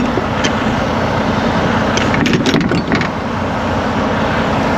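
Semi truck's diesel engine running, heard from inside the cab as a steady low noise, with a few light clicks or rattles about two seconds in.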